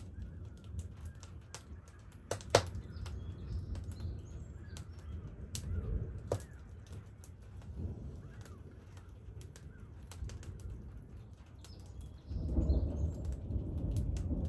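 Low rumble of thunder from a passing storm, swelling louder about twelve seconds in. Scattered sharp pops and crackles, the loudest a little over two seconds in, and a few faint bird calls.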